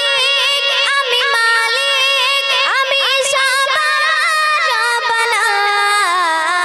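A girl's voice singing a Bengali gojol into a microphone, holding long notes and sliding between pitches in ornamented runs.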